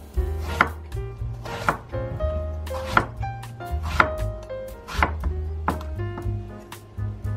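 A kitchen knife cutting eggplant (aubergine) on a wooden cutting board, a series of chopping strokes, with background music playing.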